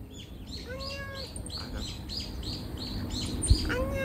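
Bird chirping in a quick series of short high notes, about four a second. Twice, near the start and near the end, there is a longer, level call.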